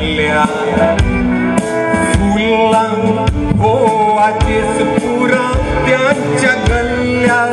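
A man singing into a microphone, amplified over a live-mixed backing of instrumental music.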